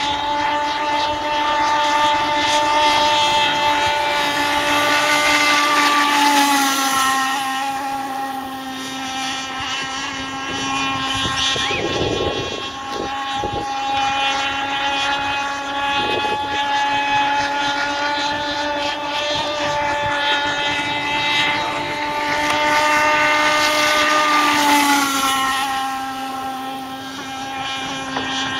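Radio-controlled Insane Cat racing catamaran's modified Zenoah two-stroke petrol engine running flat out, a steady high-pitched drone. It swells in loudness twice and drops slightly in pitch each time, about six and twenty-five seconds in.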